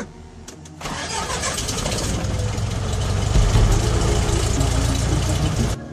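Single-engine light aircraft's piston engine being started, heard from inside the cabin: a few clicks, then about a second in the engine catches and runs, growing louder and settling into a steady run. The sound cuts off sharply near the end.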